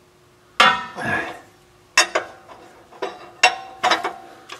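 Large 1¾-inch wrench clinking against a steel nut and fitting as it is set on and pulled round one flat at a time: about seven sharp metallic clinks with a brief ring, the first a longer scraping clatter.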